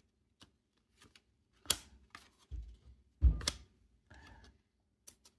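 Cardboard trading cards being flicked through by hand, one card slid off the stack after another: a series of separate sharp card snaps and slides, the loudest a little past three seconds in with a low thump under it.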